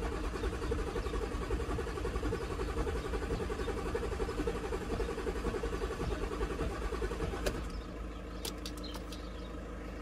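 Audi Q7 diesel engine being cranked on the starter without firing, a steady rapid chugging that stops about seven and a half seconds in. This is a crank-no-start with far too little rail pressure, and there is a crack during cranking that the mechanic likens to hydrolock and suspects is fuel getting into a cylinder.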